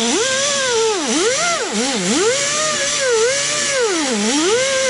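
Right-angle air die grinder with a green surface-conditioning disc buffing gasket residue off the deck of a Detroit Diesel Series 60 cylinder head. Its whine drops in pitch each time the disc is pressed onto the head and rises again as the pressure eases, about once a second, over a steady hiss.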